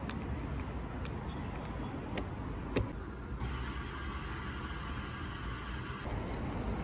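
Steady low background rumble with a few faint ticks and one short knock just under three seconds in.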